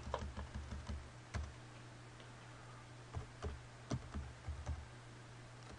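Computer keyboard keys tapped in short, irregular runs, deleting old text and typing a new file name, over a low steady hum.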